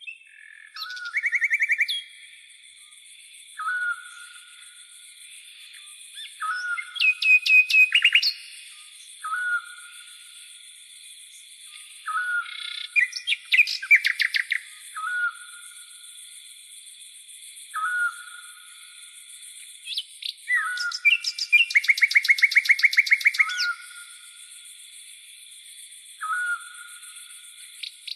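Tropical forest birds calling. One bird gives a short call about every three seconds, and others break in four times with loud bursts of rapid chirping trills. Under them runs a steady high insect drone, crickets.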